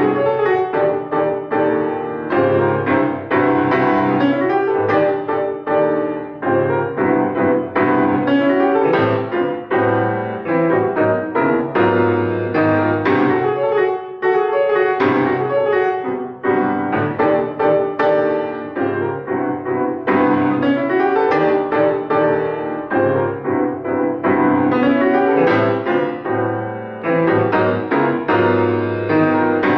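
Solo acoustic grand piano played live, a continuous flow of notes and chords without pause.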